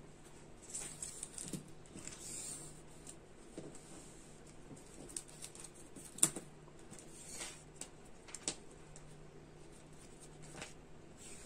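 Soft rustling and light taps of a hand smoothing a crochet runner made of cotton twine and laying a flexible tape measure along it. There is one sharper click about six seconds in.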